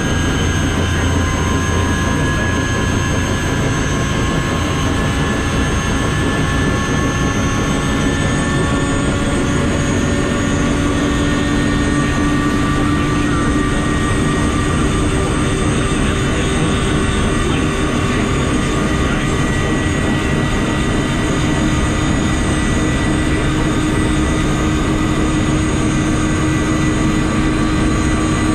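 Bell UH-1 Huey helicopter's Lycoming T53 turbine engine running just after start-up, heard loud from inside the cockpit: a steady turbine whine over a dense rumble. A few of its tones shift slightly about eight to ten seconds in.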